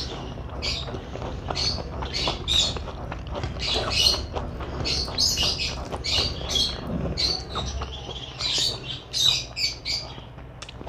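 Pet budgerigars and lovebirds chirping and squawking in many short, rapid calls.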